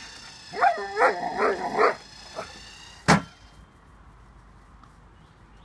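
A dog barks in a quick run of about five barks over a steady high whine from an automatic ball launcher's motor. About three seconds in comes one sharp crack as the launcher fires the ball, the loudest sound here.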